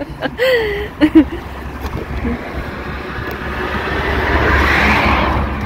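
A vehicle passing on the road: a rushing whoosh that swells and peaks near the end, over a low wind rumble on the microphone.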